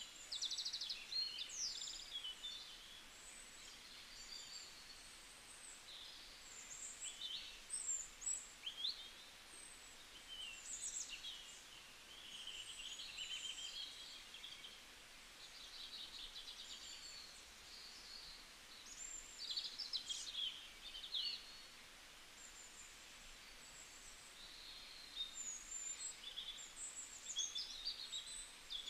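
Birds chirping in many short, high calls and quick pitch glides, over a faint steady hiss.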